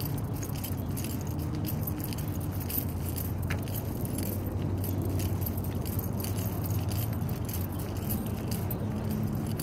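Keys jingling irregularly in step with someone walking, over a steady low mechanical hum.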